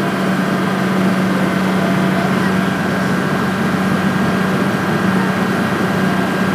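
Ferry boat's engine running steadily under way, a constant low drone heard from on board.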